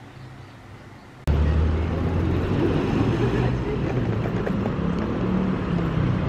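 Quiet room tone that cuts abruptly, about a second in, to busy city street ambience: traffic running with a steady low rumble, and a crowd of pedestrians talking.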